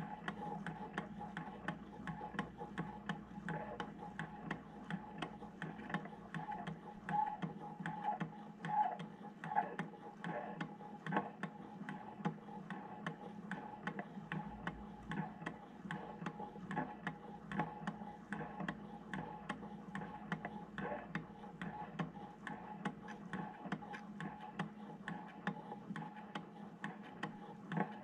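Low-temperature Stirling engine running, its moving parts making a steady ticking.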